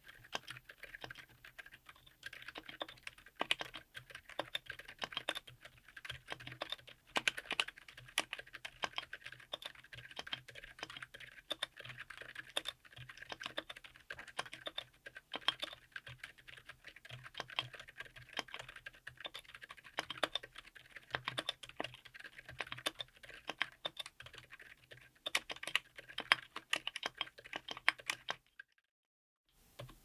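Typing test on a mechanical keyboard with Akko Penguin silent tactile switches, Maxkey SA-profile ABS double-shot keycaps, an FR4 plate and a Tofu60 aluminium case: a quiet, fast, uneven run of keystrokes, pausing for about a second and a half near the end.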